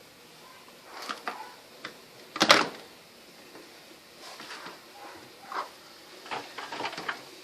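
Clicks and knocks of a washing machine being handled, with one sharp, loud knock about two and a half seconds in and a run of smaller clicks near the end.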